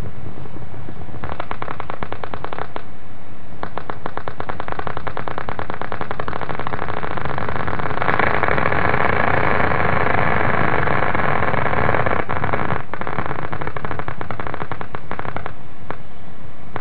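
EMG machine loudspeaker playing motor unit potentials picked up by a needle electrode in the frontalis muscle: rapid crackling pops that start about a second in and grow dense and loud midway as the patient raises the eyes and activates the muscle. The pops thin out near the end as the gaze turns downward and the muscle relaxes.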